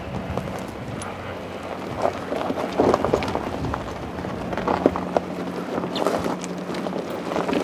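Tyres of a slow-moving SUV crunching and crackling over loose gravel and stones, with a low steady hum from the vehicle underneath.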